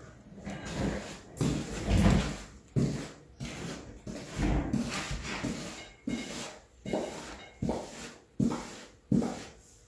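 A paintbrush stroking Elmer's glue over torn paper pieces laid on the floor: repeated wet swishes and paper rustles, settling into a steady rhythm of about one stroke every 0.7 s in the second half.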